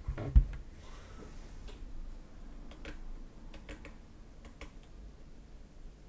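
A sharp thump about half a second in, then a handful of separate, spaced-out keystrokes on an Ajazz AK33 mechanical keyboard, each a sharp click from its clicky blue-type switches.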